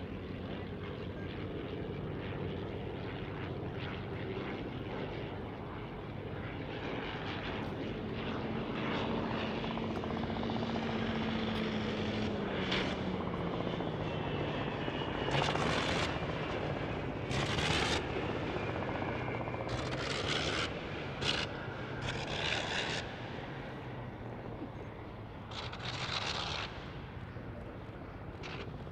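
The Fokker Dr.I triplane's 1917 Oberursel rotary engine running as the plane flies past, its steady tone dropping in pitch as it passes about halfway through. In the second half there are several short, loud bursts of noise.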